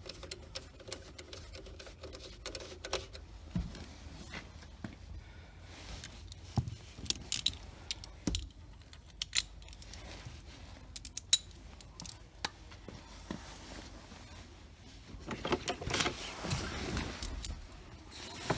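Scattered small metallic clinks and clicks of hand tools and screws being handled while dash screws are fitted. About three-quarters of the way through there is a longer stretch of rustling and scraping.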